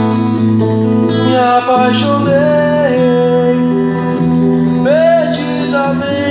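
Music: acoustic guitar strumming steady chords, with a wordless vocal line sliding up and down in pitch twice.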